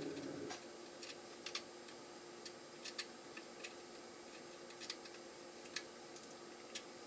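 Scattered, irregular light clicks and taps from handling 3D-printed PLA helmet parts and tools during PLA welding, over a faint steady hum.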